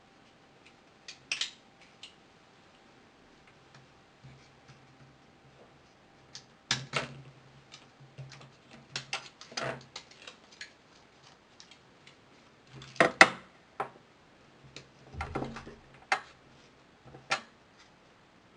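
Irregular small clicks and taps of hand tools and smartphone parts being handled during a phone screen repair. The loudest is a quick pair about thirteen seconds in.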